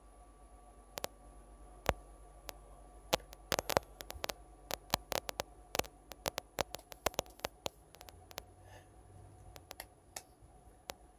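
An irregular run of sharp clicks and taps, thickest in the middle, over a faint steady high-pitched electrical whine and low hum.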